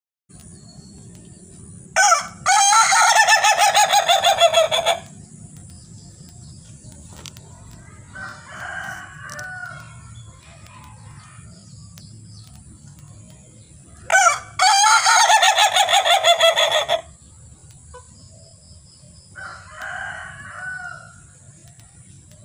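A white Ayam Ketawa (Indonesian laughing chicken) rooster crowing twice, about twelve seconds apart. Each crow is a short opening note followed by a long, rapid stuttering run of notes lasting about two and a half seconds, the breed's 'laughing' crow. Softer, shorter calls come between the crows, over a steady high-pitched whine.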